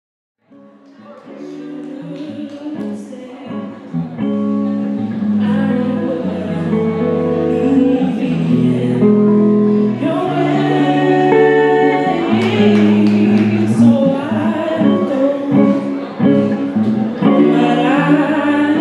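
A woman singing into a microphone with guitar accompaniment in a live performance. The music fades in over the first few seconds.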